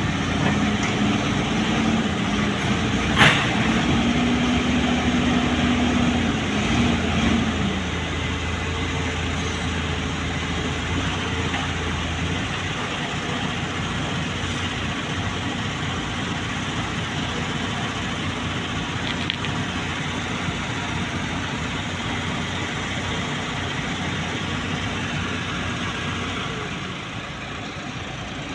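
Wheel loader's diesel engine running; its pitch rises a few seconds in, holds, then drops away about seven seconds in, leaving a steady rumble and hiss. One sharp knock about three seconds in.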